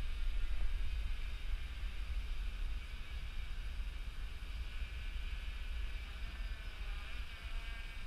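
Quadcopter with Sunnysky 2216 800kv brushless motors and Graupner 10x5 propellers buzzing steadily overhead as it hovers, its pitch shifting slightly in the second half. Wind rumbles on the microphone underneath.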